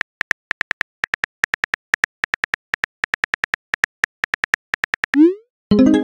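Simulated phone-keyboard typing clicks, rapid and even at about six a second, as a text message is typed. About five seconds in there is a short rising whoosh as the message sends, followed by a ringing chime near the end.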